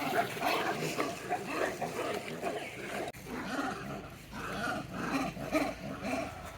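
Baby monkey screaming angrily: a rapid string of short, high cries, several a second, with a brief break about three seconds in.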